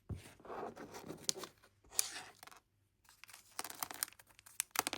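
A small plastic bag of miniature toy fruit pieces being torn open and handled: crinkling and tearing, then a quick run of sharp little clicks near the end after a short pause.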